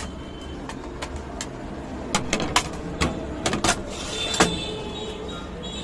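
Busy street background with a steady low traffic rumble, and a quick run of sharp clicks and knocks about two to four seconds in.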